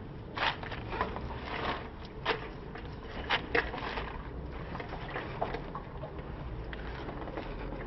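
Scattered sharp clicks and knocks from tools and metal parts being handled during motorcycle rear-wheel removal, over a steady low rumble.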